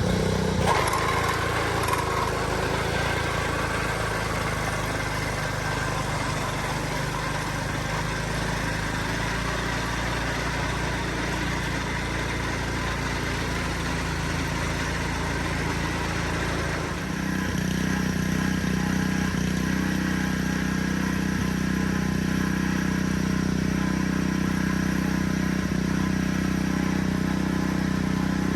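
Gas-engine sod cutter running steadily while it cuts sod out of a lawn. About seventeen seconds in, the engine note changes and settles into a stronger, steady hum.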